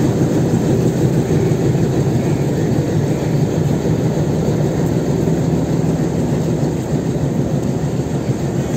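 Bangladesh Railway passenger coaches rolling alongside a station platform: a steady low rumble of wheels on rail that eases slightly near the end.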